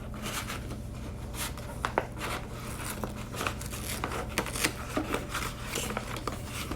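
An envelope being handled and opened: irregular rustling and crinkling with soft crackles and scrapes.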